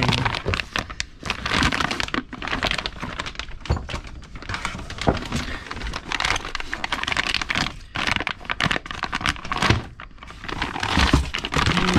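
Clear plastic parts bags crinkling and rustling as they are handled and pulled out of a cardboard box, in irregular crackly bursts with a short lull about ten seconds in.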